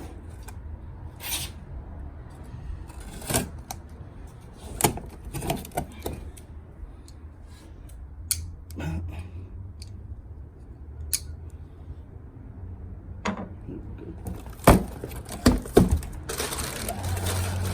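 A cardboard shipping box being opened and unpacked by hand: scattered clicks, taps and scrapes, a few louder knocks a little before the end, then a rustle of packing near the end.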